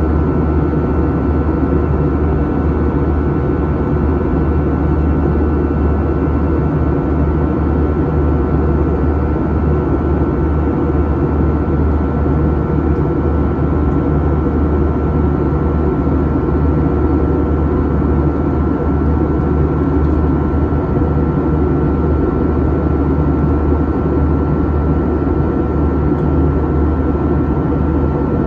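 Steady cabin noise inside an Airbus A321-211 in cruise: the even drone of its CFM56 turbofans and rushing airflow, with a thin steady whine above it.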